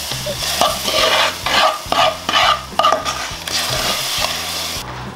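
Wooden spoon scraping butter-toasted semolina out of a pan into a pot of hot milk, in a quick run of uneven scrapes with the semolina dropping into the liquid.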